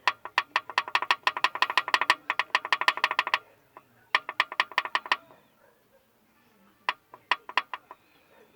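Loose connecting rod on a Chevrolet Monza's crankshaft rocked back and forth by hand, clacking metal on metal in three quick runs of about eight clicks a second. The play is from worn connecting-rod bearings, which the owner blames for the engine noise.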